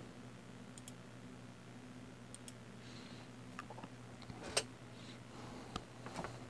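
A few faint, scattered clicks over a low steady hum; the sharpest click comes about four and a half seconds in.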